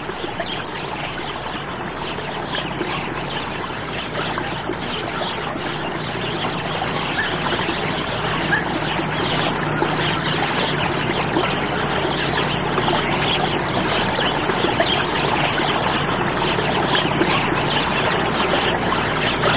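Steady rushing noise like running water, slowly growing louder.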